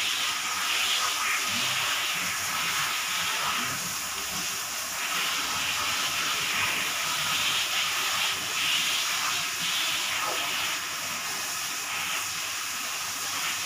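A steady hiss that swells and fades a little, with no clear animal calls or knocks.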